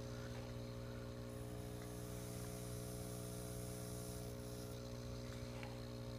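Aquarium air pump, converted to a vacuum pump, running with a steady hum and buzz at mains frequency, with a few faint light ticks.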